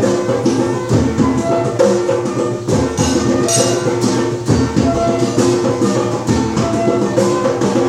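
Music with a steady beat and held melodic notes, played at a lively pace.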